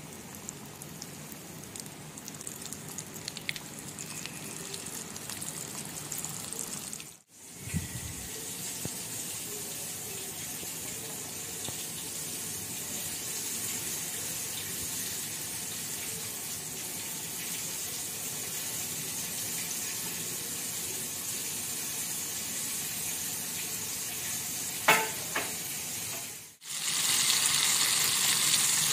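Flour-coated prawns deep-frying in hot oil in a wok, a steady sizzle that gets louder and brighter in the last couple of seconds. There is a brief sharp knock shortly before that.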